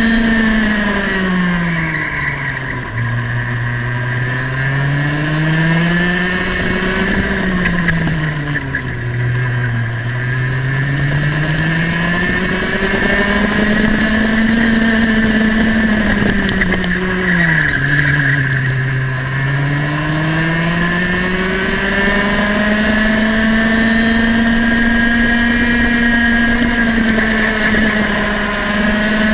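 Single-cylinder two-stroke kart engine at racing revs. Its pitch drops sharply three times as the kart slows for corners and climbs back up under throttle, holding near the top of its rev range on the straights.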